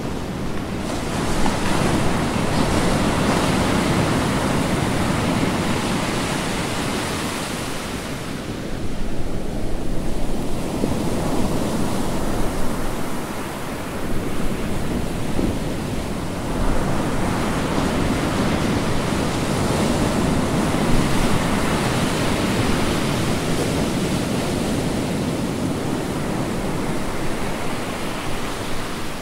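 Ocean surf washing ashore: a continuous rush of breaking waves that swells and eases in slow surges every few seconds.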